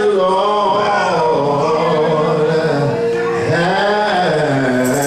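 Gospel worship singing, with long notes held and sliding between pitches.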